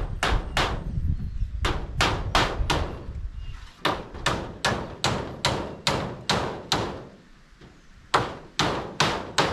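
Hammer blows on metal roof cladding sheets as they are nailed down: runs of sharp, ringing strikes about three a second, broken by short pauses.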